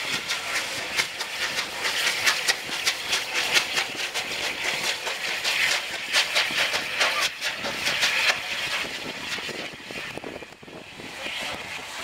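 Steam locomotive 34007, an air-smoothed Bulleid light pacific, working past close by: a rapid run of regular exhaust beats over steam hiss, fading after about nine seconds as the coaches follow.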